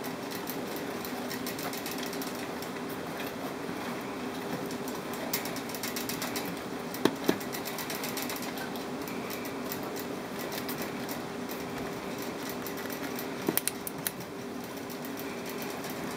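A steady mechanical hum, with faint clicks and rustling from pet rats and a hand moving on bedding and a plastic hideout. Sharp knocks come twice about seven seconds in and as a quick cluster a couple of seconds before the end.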